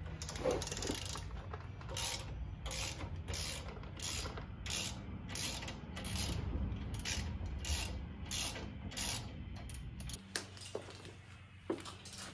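Hand ratchet wrench being swung back and forth on the rear-axle hardware, a steady run of ratcheting clicks at about two strokes a second that stops about ten seconds in, followed by a few single clicks.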